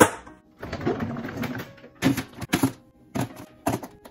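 Lids of plastic Ziploc food-storage containers being pressed shut: sharp plastic clicks and snaps in quick clusters, with a stretch of plastic rustling and scraping about a second in.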